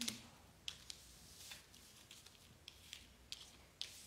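A deck of cards being handled: a few faint, scattered clicks and rustles of cards, with no speech.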